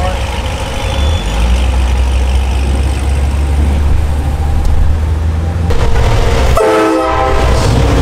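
Air-powered train horn on a truck blowing a loud multi-note chord, strongest about seven seconds in, over the steady low rumble of the truck running.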